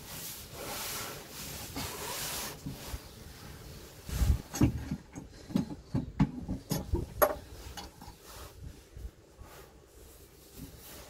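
Handling noise as a plastic waste water tank and its corrugated waste hose are worked into their mounting brackets: a rustling scrape at first, then from about four seconds in a run of irregular knocks and thuds.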